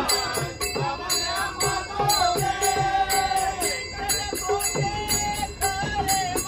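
Marathi devotional abhang: a wavering melody line carried over a steady beat of small hand cymbals (taal) and a low drum-like thump.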